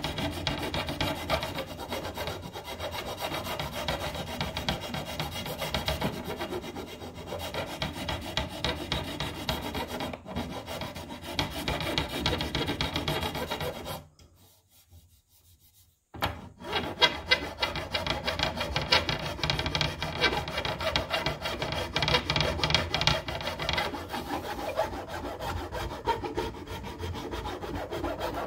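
Steel files rasping on the white oak handle of a longbow in repeated back-and-forth strokes, first a round file and then a flat file. The filing stops for about two seconds around halfway, then resumes.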